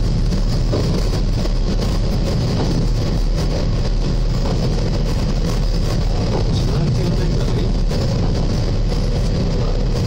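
Diesel railcar running along the line, its engine and wheel rumble picked up through the front windscreen glass, so the sound is full of vibration noise and heavily distorted.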